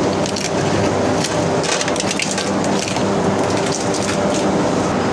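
Electric coconut-deshelling machines running with a steady hum over a continuous dry crackling of coconut shells being pried off and broken.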